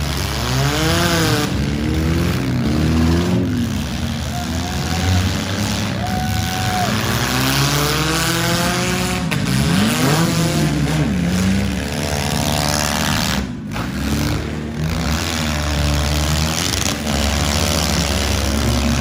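Several four-cylinder demolition derby cars' engines revving hard at once, their pitch rising and falling over a steady din.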